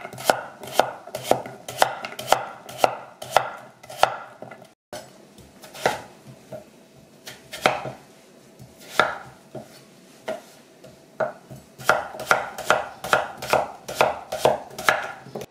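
Kitchen knife slicing Korean radish on a cutting board: a steady run of cuts about two a second, a few scattered cuts in the middle, then a faster run of about three a second near the end.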